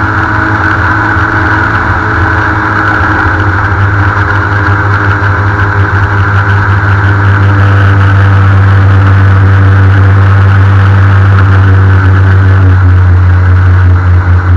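Airboat engine and propeller running loud and steady, growing louder about halfway through and then holding at full volume.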